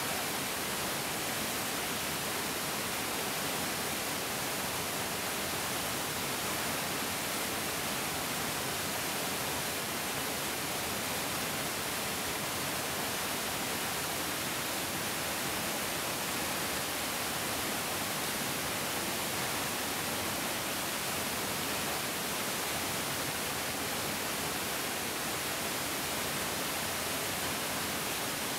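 Mountain stream rushing steadily, a dense even hiss of flowing water with no breaks.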